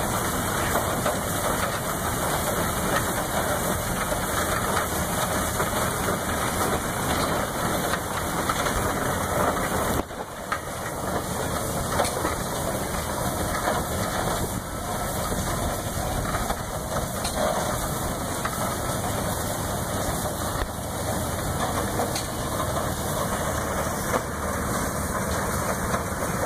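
Big Case steam traction engine running as it drives slowly by.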